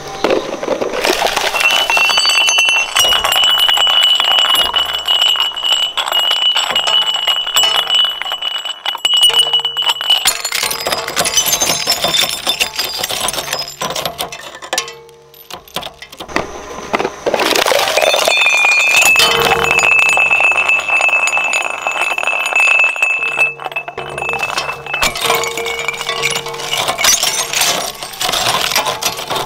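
Shredder crunching plastic toys, a dense run of cracking and clinking with a brief lull about halfway through. A steady high tone holds for several seconds twice, and music plays underneath.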